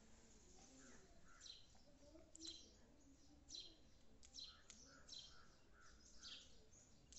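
House sparrows chirping faintly: a loose string of short, high chirps, about two a second.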